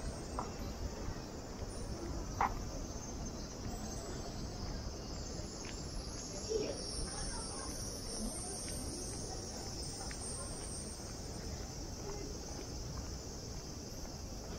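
Cicadas droning steadily in the street trees, a high, even buzz over low town background noise, with a few faint taps, the sharpest about two and a half seconds in.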